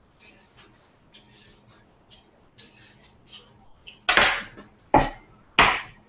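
Kitchen counter handling: faint rustling and light clinks, then from about four seconds in three loud thuds on the counter, roughly half a second to a second apart.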